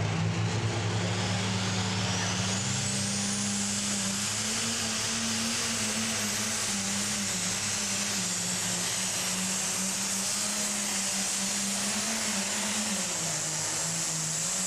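Ford pulling tractor's turbocharged diesel engine running flat out while dragging a weight sled. A high turbo whine rises over the first few seconds and then holds, and the engine note sags slightly near the end as the load builds.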